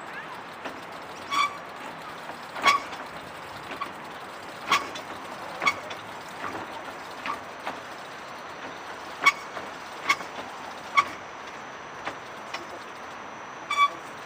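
Steady background hum with about a dozen short, sharp clicks at irregular intervals, each ringing briefly at a high pitch.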